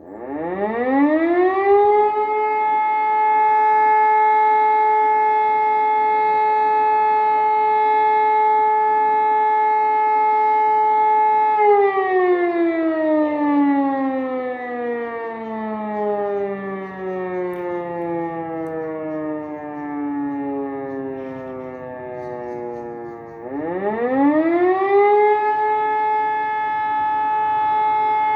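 E57 electromechanical siren sounding a test alarm. Its rotor spins up to a steady tone within about two seconds and holds for about ten seconds. It is then switched off and winds slowly down in pitch for about twelve seconds, before spinning up to the steady tone again. The twelve-seconds-on, twelve-seconds-off pattern is that of the German fire-brigade alert signal.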